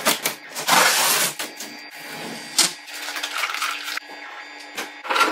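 Blue packing tape being peeled off a 3D printer's plastic casing: a loud rip about a second in, then crinkling of the balled-up tape and scattered light knocks.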